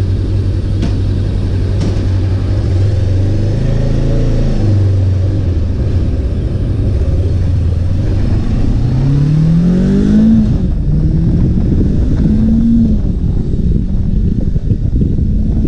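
Hunter Maverick 500's 471cc parallel-twin engine running as the motorcycle rides off, with a steady note at first, then the revs climbing twice as it accelerates.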